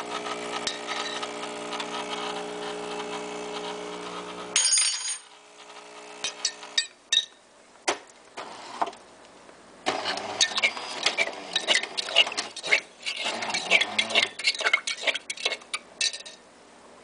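Automatic coffee machine running with a steady electric hum that cuts off abruptly with a click about four and a half seconds in. A fainter hum follows for another two seconds. After that come a few separate clicks and then a long run of quick clicks and clinks.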